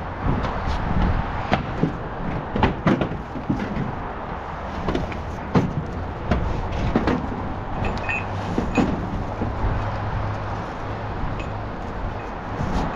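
Irregular knocks and clattering, a dozen or so sharp strikes, over a steady background noise; a low steady hum joins about eight seconds in.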